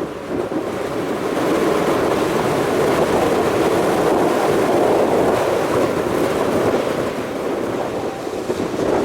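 Heavy storm surf on Lake Michigan, waves crashing and churning in a steady rush, with strong wind buffeting the microphone. It builds over the first couple of seconds.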